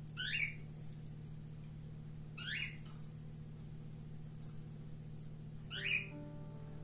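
Silicone spatula scraping under a slice of the baked dish on the plate, giving three short squeaky scrapes that fall in pitch. A faint steady hum runs underneath, and music comes in near the end.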